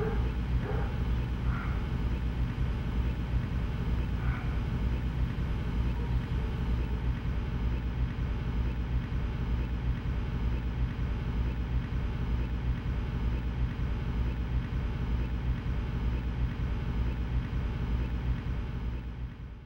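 Steady low rumbling drone with an even hum, dropping away suddenly at the very end.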